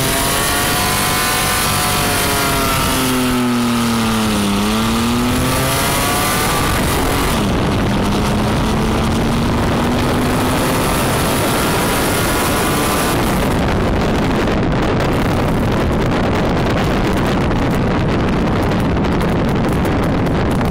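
1992 Ford Ranger with a straight-piped exhaust revving hard, its pitch dipping and climbing several times. About thirteen seconds in, the engine tone gives way to a loud, steady rushing noise.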